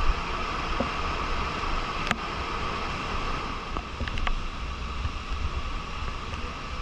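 Waterfall rushing steadily, its flow swollen by monsoon rain, with wind rumbling on the microphone and a few faint clicks.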